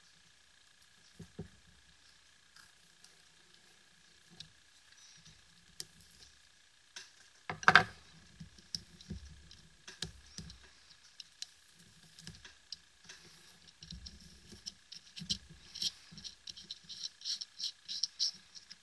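Small clicks and handling noises at a BLF Q8 flashlight's electronic side switch, with one sharp, louder click about eight seconds in. Near the end the switch is pressed again and again, about three clicks a second, over a faint steady high whine.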